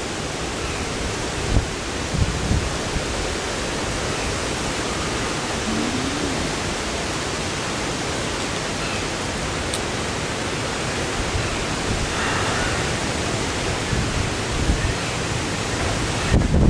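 Steady rushing of storm wind and rain, with gusts buffeting the microphone.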